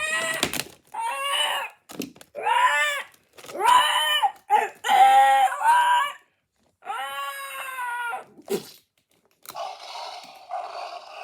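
A child's voice making a series of dinosaur roars and screeches, short pitched calls that rise and fall with gaps between them. Near the end a quieter, steadier sound takes over.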